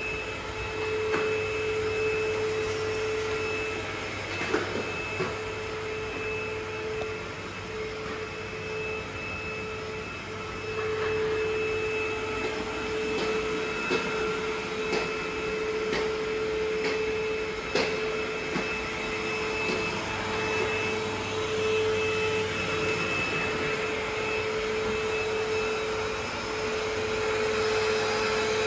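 A steady mechanical hum, with a tone that fades in and out and a few faint clicks and knocks scattered through it.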